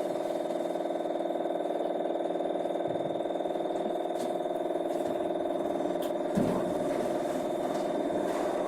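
CNC lathe running a machining cycle: a steady motor and spindle hum with a thin high whine, and a single knock about six and a half seconds in.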